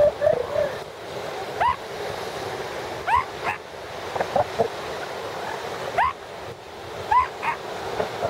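Northern elephant seals calling: a string of short yelps that slide upward in pitch, about eight of them, some in quick pairs, over a steady wash of surf.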